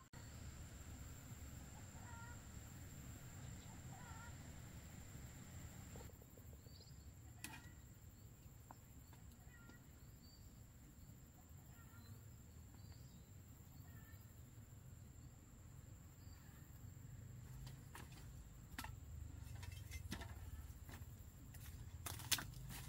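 Quiet countryside ambience: a low steady rumble and a thin high whine, with a few faint short bird chirps spread through. A few faint clicks come near the end.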